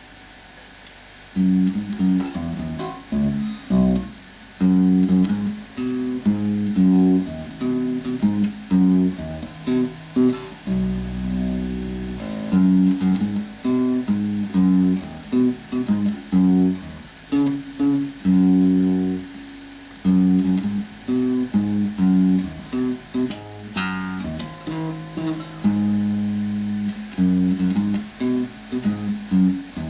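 Electric guitar fitted with home-made humbucker pickups being played, picking a run of single notes and short chord phrases, starting about a second and a half in.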